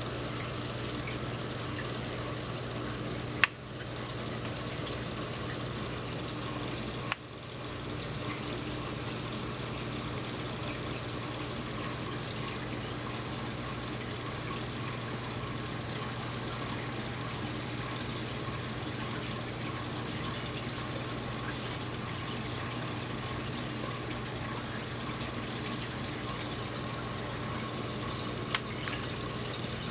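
Steady trickling and splashing of water circulating in a saltwater aquarium, over a low steady hum. Three sharp clicks cut through it, about three and seven seconds in and again near the end.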